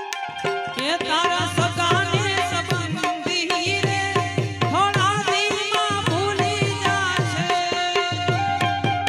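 Instrumental interlude of a Gujarati folk song: a hand drum keeps a steady beat while a melody instrument plays quick, bending ornamented runs from about a second in.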